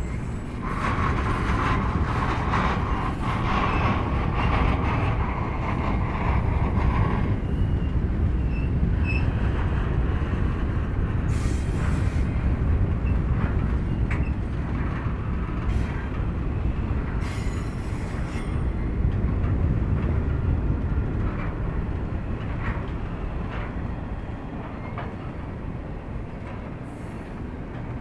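Double-stack intermodal freight train of well cars rolling past: a steady low rumble of steel wheels on rail, with a high wheel squeal for the first several seconds and a few sharp clanks later on.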